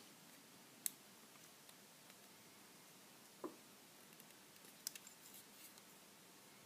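Faint metallic clicks and ticks of a hook pick and tension tool working the pins of a small brass padlock: a sharp click about a second in, a softer one a little after three seconds, and a short run of light clicks around five seconds, over near silence.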